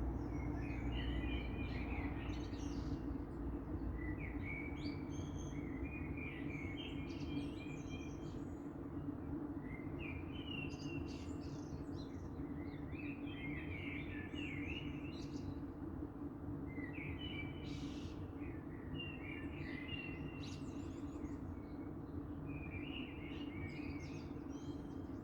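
Songbirds singing in the dawn chorus: short warbling phrases every few seconds, over a steady low hum.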